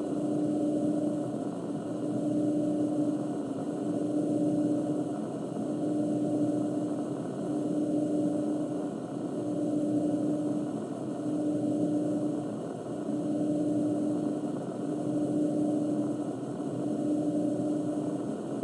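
Radio receiver audio of the 1172 kHz beacon in narrow CW mode on a JRC NRD-525: a steady low beat tone keyed in long dashes, about one every two seconds. It sits over thick receiver static whose loudness swells and fades, the strange background sound that comes in under the beacon.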